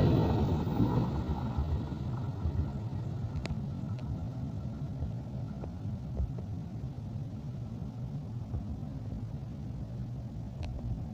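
A passing train's low rumble dying away over the first couple of seconds, then a steady faint rumble as it recedes, with a couple of sharp clicks.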